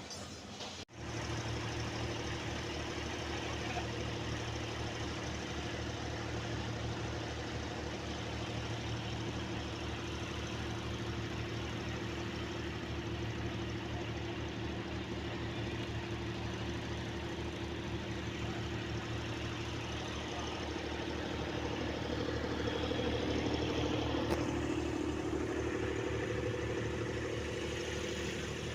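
An engine running steadily at a constant speed, its hum growing slightly louder for a few seconds late on.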